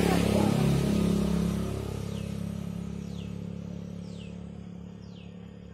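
A motor vehicle's engine passing close by, loudest near the start and then fading away. From about two seconds in, a bird calls with short falling notes about once a second.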